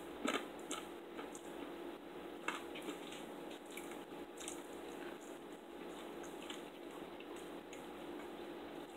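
Faint chewing of crispy bacon: scattered small crunches and wet mouth clicks at irregular moments, over a steady low hum.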